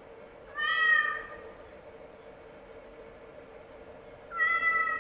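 Domestic cat meowing twice, the calls about four seconds apart, over a faint steady hum.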